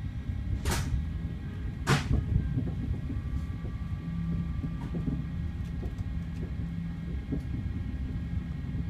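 Passenger train running, heard from inside the carriage: a steady low rumble, with two short hissing bursts about a second apart near the start.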